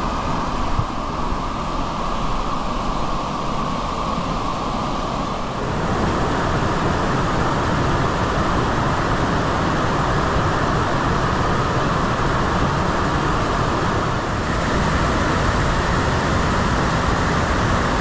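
Steady roar of rushing water from a waterfall and its cascades, growing louder about six seconds in.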